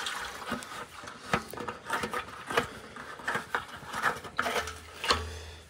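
Scattered light metallic clicks and taps as a steel motorcycle fuel tank is handled and its hinged filler cap is worked open.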